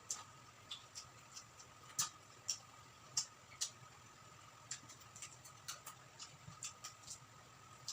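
Close-up chewing of crispy deep-fried quail: irregular sharp crunches and mouth clicks, several a second at times, with a few louder crunches.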